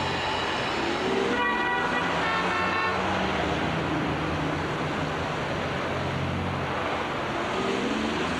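City street traffic with car horns honking, a few short toots in the first few seconds over a steady traffic rumble.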